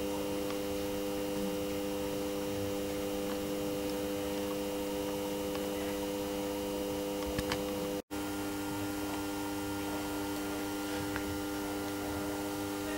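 Steady background hum with several held tones over a hiss, inside a ship's compartment. It breaks off for an instant about eight seconds in, at an edit.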